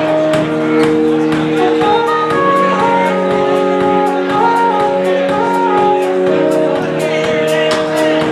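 A live band playing: held chords underneath, with a melody stepping from note to note above them and quick, regular cymbal ticks.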